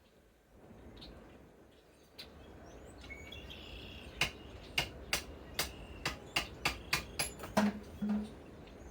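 Hammer striking metal about a dozen times, short ringing blows about two to three a second that begin about halfway through, knocking loose a lag screw jammed in an impact socket.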